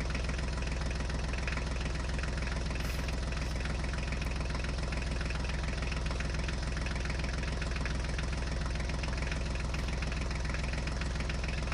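Tractor diesel engine sound running steadily at an even idle-like pace, with a fast, regular knock throughout.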